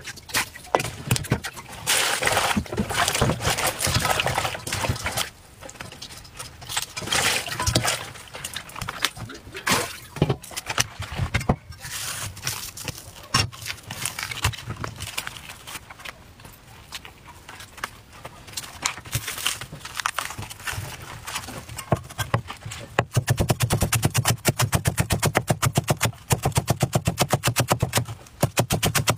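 Irregular rustling and knocking as wet garlic stalks are handled and peeled on a wooden chopping board, then, about three-quarters of the way through, a Chinese cleaver chopping rapidly and evenly on the board, several strokes a second, as a stalk is shredded into fine strips.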